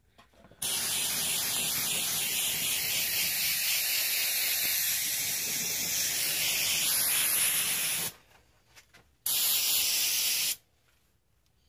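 Aerosol can of carburetor cleaner spraying: one long, steady hiss of about seven and a half seconds, then a second short burst of just over a second.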